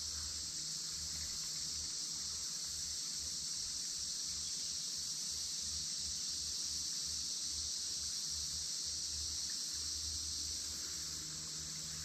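Steady, continuous high-pitched chorus of insects.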